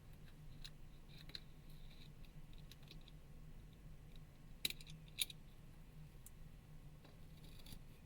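Faint light clicks and scratches of small tools and phone parts being handled, with two sharper clicks about halfway through, over a low steady hum.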